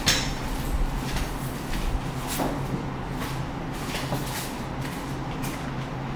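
Light tabletop handling noises: a sharp knock at the start, then faint scattered taps and rustles over a steady low hum.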